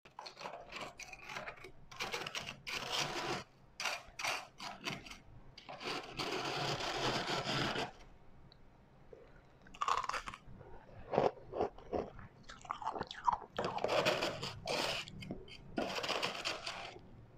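A person biting into and chewing refrozen white ice, with loud, irregular crunches in bursts and a longer spell of grinding crunch about six seconds in.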